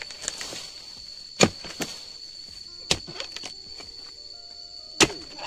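Three sharp chops of a steel harvesting chisel biting into the fibrous bases of oil palm fronds, about a second and a half apart, pruning fronds to reach the fruit bunches.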